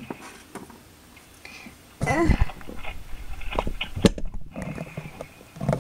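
Close handling noise: small plastic toy figures and paper props being moved and set down, with scattered clicks and knocks. It gets louder and crackly about two seconds in, where a brief voice-like sound is also heard.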